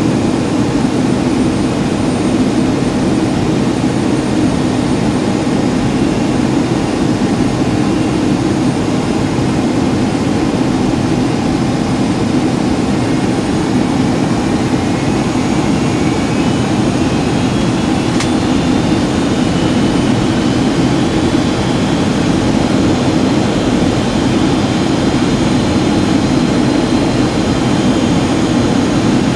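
Steady jet-airliner cabin noise in a Boeing 757-200: an even low rush of engines and airflow. About halfway through, a faint thin tone rises in pitch and then holds, and there is a single faint click.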